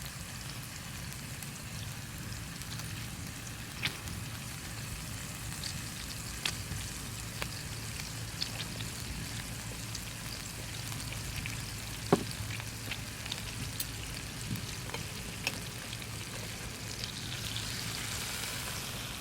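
Beef steak sizzling over a campfire: a steady frying hiss with scattered sharp pops, a louder one about twelve seconds in.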